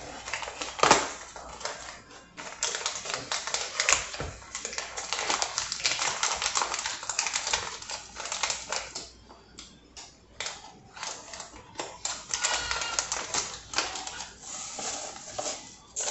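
Kitchen prep handling noises: fast runs of rustling, clicking and clattering in two long spells, with a quieter stretch of scattered clicks between them.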